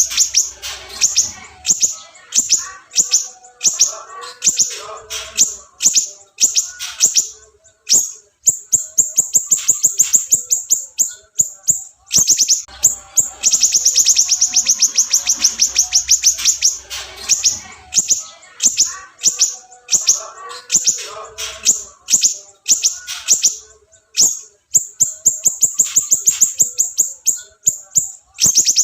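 Songbird song from a masteran (bird-tutoring) recording: fast series of sharp, high chirps alternating with long, rapid trills. The same sequence repeats about every twelve seconds, as in a looped tutor track.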